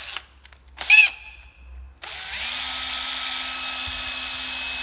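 Hitachi DS13DV2 12V cordless drill driver running with no load. A short trigger blip comes about a second in. About two seconds in the motor spins up and runs at a steady whine.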